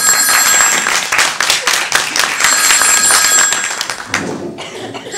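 Audience applause, dense clapping that dies away near the end, with a telephone bell ringing through it in two bursts of about a second each.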